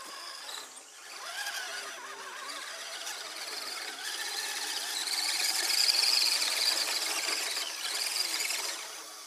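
Axial SCX10 radio-controlled crawler's electric motor and geared drivetrain whining as it climbs a dirt slope, a high whine that swells and is loudest about two-thirds of the way through.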